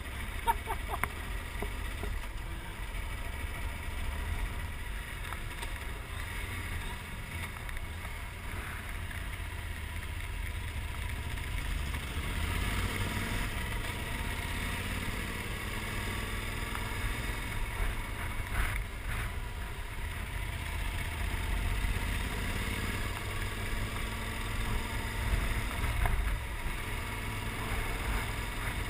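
Riding on a Yamaha XT1200Z Super Ténéré: a steady low wind rumble on the microphone, with the bike's parallel-twin engine running beneath it and shifting in pitch now and then.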